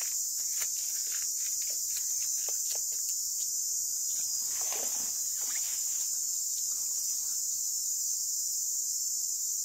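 Forest insects keeping up a steady, high-pitched drone, with a few faint rustles near the middle.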